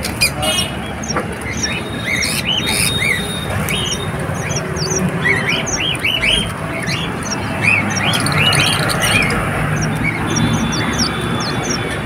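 A cage of strawberry finches (red avadavats) chirping: many short, high calls overlapping one another without pause, over a steady low background rumble.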